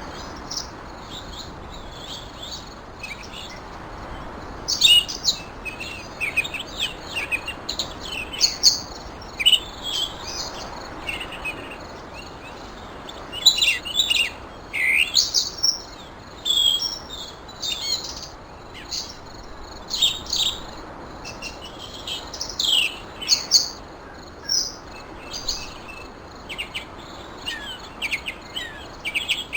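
Small songbirds chirping and singing in short, high notes and quick trills, many in a row and overlapping, over a steady background hiss.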